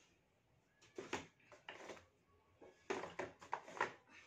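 Short clicks and knocks of kitchen handling at the rice cooker, in small clusters about a second in and a denser run from about three to four seconds in.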